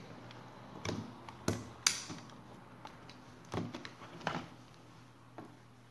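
Sony Vaio laptop's battery being unlatched and pulled out of the case: about six short plastic clicks and knocks, the loudest about two seconds in.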